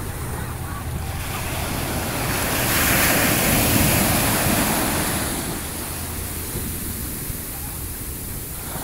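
Ocean surf breaking on a sandy beach: a wave swells and crashes about three seconds in, then washes up and fades into steady foam hiss. A steady low rumble of wind on the microphone runs underneath.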